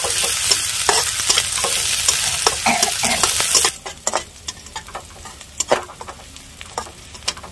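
Chopped onion, green chillies and cumin sizzling in hot oil in a kadhai, with a spoon stirring and knocking against the pan. The sizzle drops suddenly about three and a half seconds in, leaving a quieter sizzle and occasional spoon clicks.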